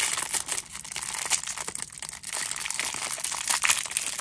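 Thin clear plastic wrapper crinkling as hands pull it open and peel it off a small plastic toy figure: a dense, irregular run of sharp crackles.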